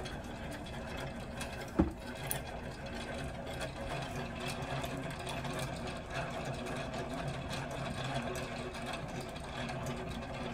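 Yarn ball winder and wooden umbrella swift spinning, winding a skein into a cake: a steady mechanical whirring, with one sharp click about two seconds in.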